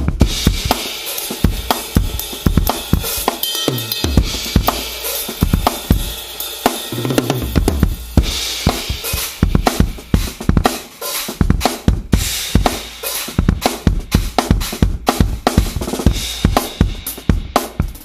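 Tama drum kit tuned super low and dry, its heads damped with gel pads, played in a busy improvised groove: dense snare, tom and bass drum hits under crash and ride cymbals.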